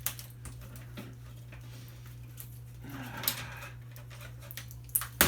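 Hands handling plastic parts of a disassembled electronic device, with tape being pulled off it: scattered clicks and knocks, a short rasp about three seconds in and a sharp click near the end, over a steady low hum.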